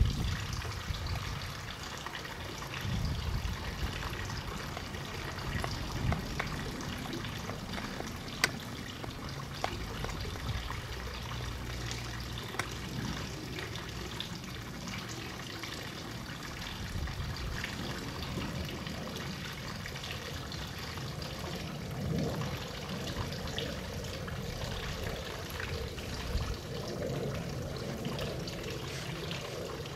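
Wolf-husky hybrid dog gnawing and licking a water buffalo horn: wet chewing and scraping sounds with scattered sharp clicks of teeth on the horn, over a steady background hiss.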